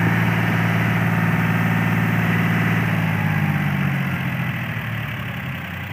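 John Deere tractor's diesel engine running steadily, growing quieter over the last couple of seconds.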